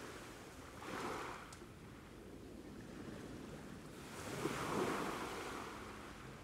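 Shallow seawater sloshing and washing over rocks in a tide pool. It swells twice: briefly about a second in, then longer and louder from about four seconds in.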